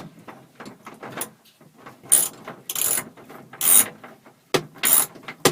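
Socket ratchet clicking in short, irregular strokes, about half a dozen, as bolts in a sliding door are worked loose.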